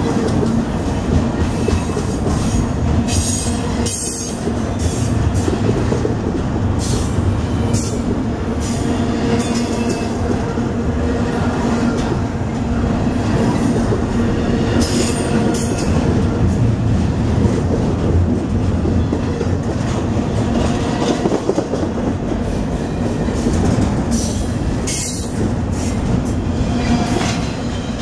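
A long freight train rolling steadily past at close range: continuous rumble and clatter of the cars' wheels on the rails, with repeated sharp clicks and some wheel squeal.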